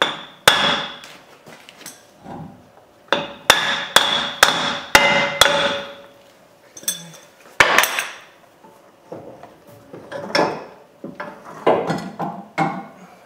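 A hammer striking the end of a Dodge Ram 1500's front CV axle shaft in the wheel hub: about a dozen sharp metal-on-metal blows, each with a short ring, with a quick run of them a few seconds in. The blows drive the splined shaft back out through the hub so the axle can be removed.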